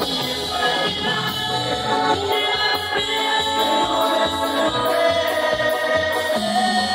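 Live Mexican regional band music: a male lead singer sings into a microphone over the band, with a steady beat.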